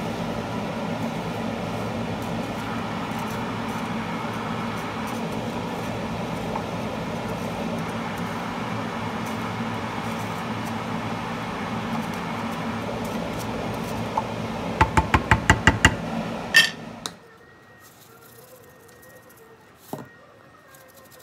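A wooden spoon working rice in a ceramic baking dish, over a steady whooshing hum. About fifteen seconds in, the spoon taps the dish about eight times in quick succession and one louder knock follows. Then the hum cuts off abruptly and it goes quiet.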